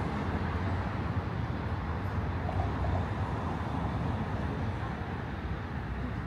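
Lisbon electric tram running, heard from on board as a steady low rumble of wheels on the rails and the car's running gear.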